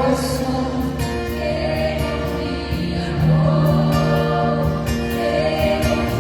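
Christian worship song in Portuguese: voices sing long held notes over instrumental accompaniment with a steady beat.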